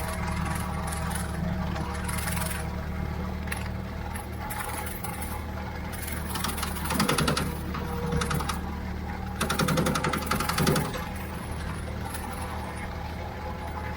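Ford 3600 tractor running steadily with a Brush King rotary mower driven off it. About halfway through, and again a few seconds later, a louder rattling clatter rises over the steady engine for about a second each time.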